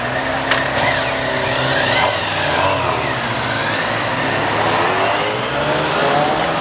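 Several motorcycle engines revving and accelerating close by, their pitches rising and falling over one another.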